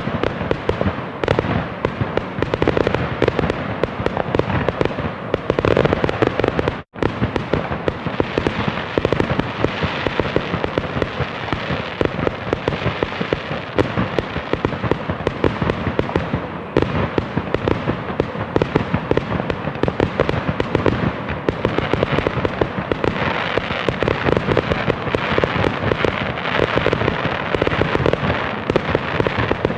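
A dense, continuous barrage of fireworks: overlapping bangs, pops and crackles with no let-up, broken only by a split-second gap about seven seconds in.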